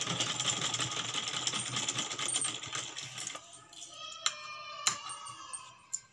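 Sewing machine running, a fast even metallic rattle of the needle stitching through fabric, for about three seconds before it stops. A couple of sharp clicks follow as the fabric is handled.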